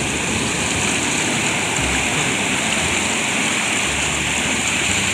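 Rough sea surf breaking and foaming in the shallows: a steady, loud rushing wash of water.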